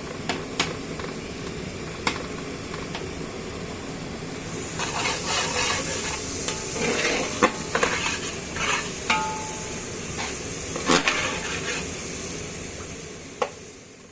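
Metal utensils clattering and scraping against a large metal pot, with sharp knocks, a couple of which ring briefly, over a steady background hum; the clatter is busiest in the middle and the sound fades out at the end.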